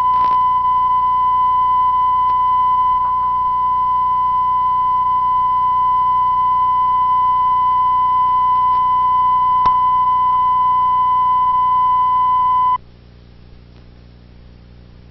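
Steady 1 kHz broadcast line-up tone that goes with colour bars at the head of a videotape, cutting off suddenly near the end and leaving a faint low hum and hiss.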